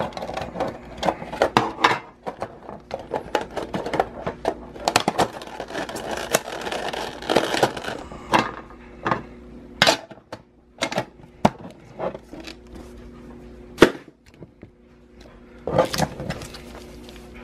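Hands handling metal Pokémon card tins and packs on a table: tin lids knocking and scraping, packaging rustling, and a few sharp knocks.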